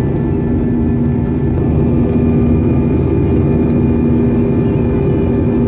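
Cabin noise of an Airbus A320-family airliner in flight: a steady, loud drone of the jet engines and airflow with a few steady humming tones over it.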